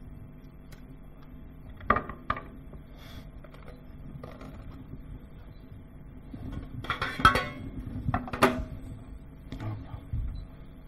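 Metal kitchenware clinking and knocking on a work counter: two sharp clinks about two seconds in, a busier clatter around seven seconds, then another sharp clink and a few fainter knocks. A faint steady hum runs underneath.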